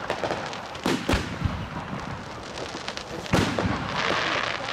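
Consumer firework battery cakes firing: several sharp bangs of shells going off, the loudest a little over three seconds in, over the continuous hiss of burning ground fountains, with a denser rush of noise near the end.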